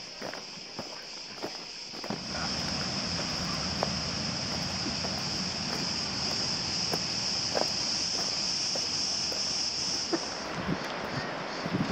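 Cicadas buzzing in a steady high drone, with scattered footsteps on stone. About two seconds in, a steady rushing sound joins and runs until shortly before the end.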